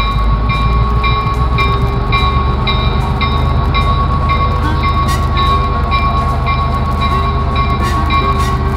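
Diesel locomotive rolling slowly by with its engine rumbling, while a bell rings steadily about twice a second over a constant high tone.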